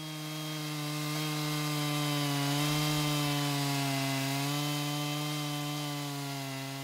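Two-stroke chainsaw mounted in a chainsaw mill, running at full throttle as its chain rips lengthwise through a log. A steady high engine note that sags a little in pitch under the load of the cut around the middle, growing louder towards the middle and easing off near the end.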